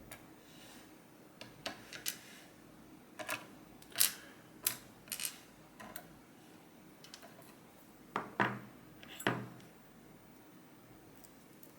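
Small metal lock parts and hand tools clinking and tapping as a Medeco M3 cylinder's pin stacks are taken out. The light, sharp clicks come irregularly, with a few louder clinks about 8 to 9 seconds in.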